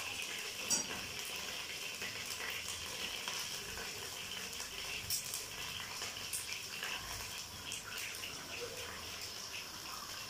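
Eggs frying in hot oil in a non-stick wok, a steady sizzle with scattered sharp crackles and pops, the loudest about a second in.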